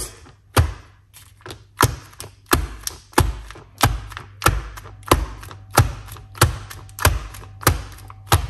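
A cake tin full of fruit-cake batter being knocked down repeatedly on a hard surface, about one and a half thuds a second, to drive air bubbles out of the batter before baking.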